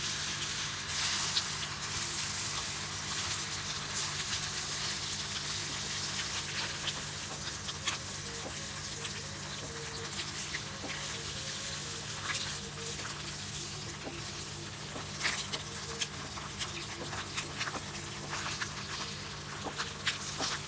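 Halved hard-boiled eggs frying in hot oil in a pan, sizzling steadily with scattered crackles and pops of spattering oil.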